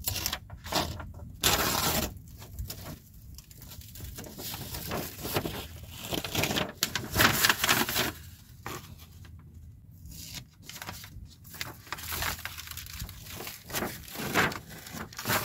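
A paper template and its masking tape being peeled off a boat hull and handled, with irregular tearing and crinkling rustles.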